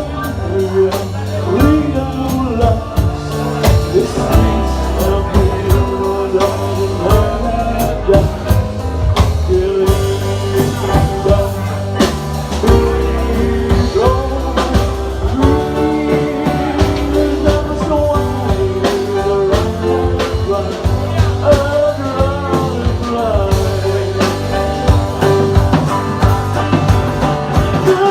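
Live blues-rock band playing: drum kit, bass and electric guitar, with singing over them.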